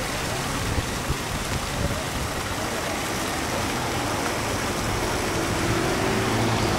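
Steady splashing of a fountain's water jets falling into its basin, mixed with the hum of city traffic.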